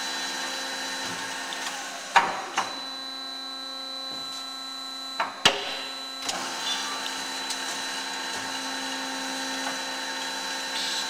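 Behringer HBP 263A automatic horizontal metal-cutting band saw running in its automatic cycle: a steady hum with a faint high whine. Two pairs of sharp metallic clunks from the machine come about two seconds in and again about five seconds in.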